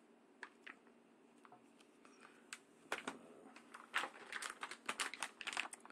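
Clear plastic bag crinkling as it is handled: a few scattered crackles at first, then a quicker run of crinkles from about three seconds in.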